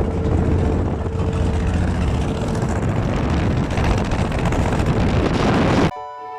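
Combine harvester running: a loud, steady engine and machinery rumble that cuts off suddenly about six seconds in, where music begins.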